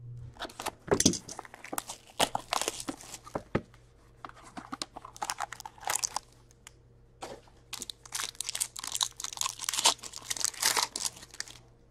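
Plastic shrink-wrap being cut and torn off a hockey card box, then the box opened and a wrapped pack handled, crinkling and tearing in irregular bursts.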